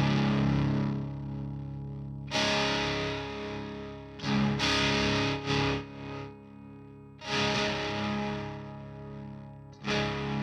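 Electric guitar played through a Diezel VH4 preamp pedal with distortion: chords struck and left to ring out and fade. Fresh chords come in about two seconds in, twice around four to five seconds, near seven seconds and near the end.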